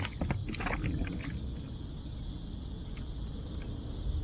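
A few light clicks and taps in the first second or so, from handling gear in a kayak, then a steady low rumble of wind on the microphone with a faint steady high hiss.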